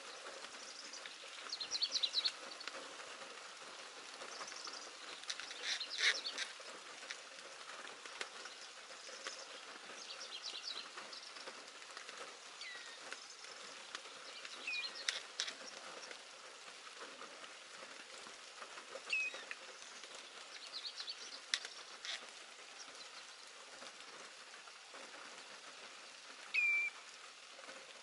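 Pallas's grasshopper warbler singing short, faint trilled phrases every few seconds over a steady hiss of rain.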